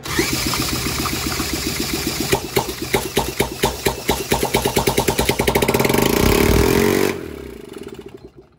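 A 50-year-old Honda ATC70 engine with very low compression, cranked by a cordless drill on the flywheel nut with the choke on and starting fluid, catches and fires, its firing quickening and rising in pitch. The drill sound stops about seven seconds in, and the engine slows and dies within about a second and a half. The new points are now giving spark.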